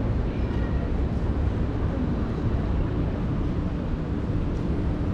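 City street ambience: a steady low rumble of traffic and the general hum of a busy town street.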